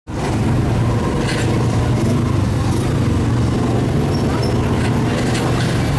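Steady, loud, low rumble of a road vehicle running, with road and traffic noise above it and a few brief hisses.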